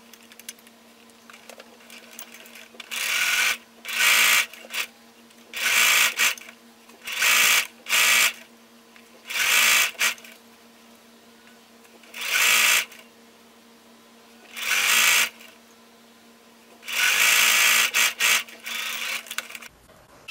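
Electric domestic sewing machine stitching a seam in about nine short runs, each under a second. A longer run of about a second and a half comes near the end. The runs are separated by pauses where only a faint steady hum remains.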